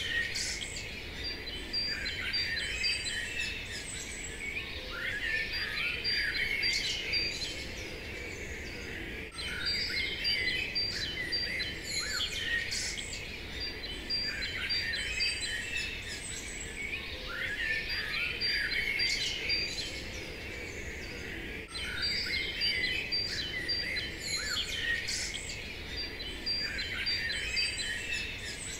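Many small songbirds chirping and singing together over a faint steady hiss: a birdsong ambience recording that repeats about every twelve seconds.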